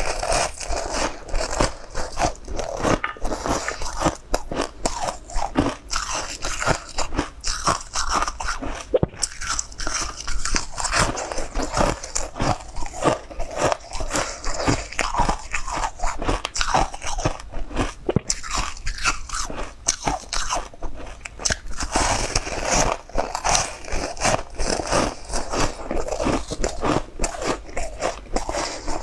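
Close-miked crunching and chewing: crisp bites into a frosted blue-and-white frozen ball, then many quick crunches as it is chewed.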